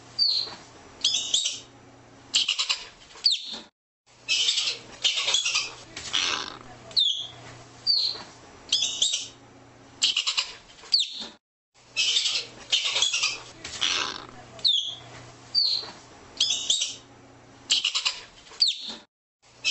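Arctic ground squirrel calling: short harsh chattering calls alternating with quick high chirps, repeated over and over with brief pauses between groups.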